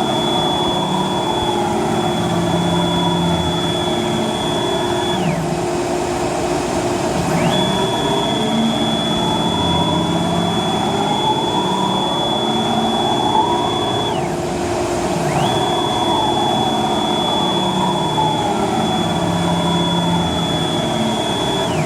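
Techno CNC HD-II router gantry traversing along its Y axis, with rough running noise that is suspected to come from the ball nut and lead screw. A steady high whine glides up as each move starts and down as it stops, breaking off twice, about five and fourteen seconds in, between three runs.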